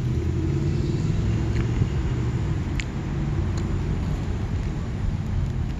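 Street traffic: a motor vehicle's engine running close by as a steady low rumble, with a few faint clicks.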